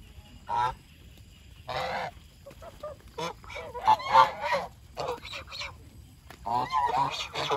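Domestic geese honking: repeated short nasal calls coming in clusters, the busiest about two seconds in, around four seconds in, and near the end.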